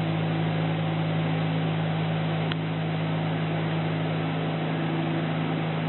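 Steady machine hum in a kitchen, a low drone with an even hiss over it, and one faint click about two and a half seconds in.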